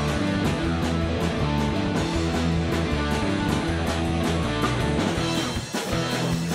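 Live punk rock band playing an instrumental passage: two electric guitars, electric bass and drums keeping a steady beat, with a brief drop in the playing about a second before the end.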